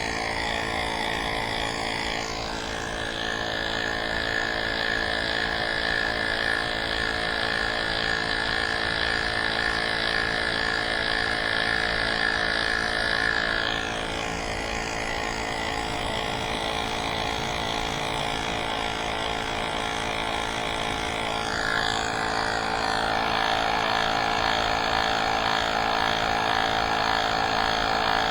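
Small electric tire-inflator pump running steadily, pumping up an e-bike's rear tire. Its tone shifts a few times as it works.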